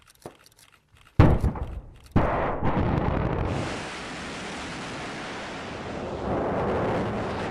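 Sound effects for a logo animation: a few faint clicks, then two heavy booms about a second apart, followed by the steady rushing noise of a rocket's exhaust.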